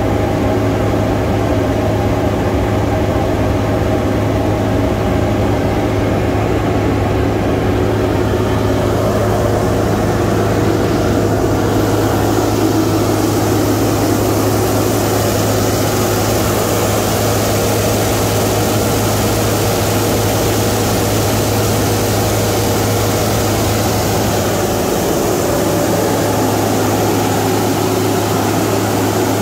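2018 Chevrolet Silverado 2500HD's L5P 6.6-litre Duramax V8 turbodiesel running steadily at raised revs during a parked forced regeneration of the diesel particulate filter. It is heard first from inside the cab, then from beside the truck with the hood open from about ten seconds in, where it sounds brighter.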